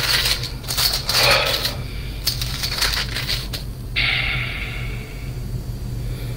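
Quick clicks, clinks and rustles from small objects being handled on a desk, then a short hiss about four seconds in, over a steady low hum.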